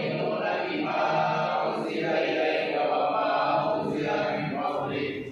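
A group of men's voices chanting Islamic prayers in unison, phrase after phrase with short breaks between.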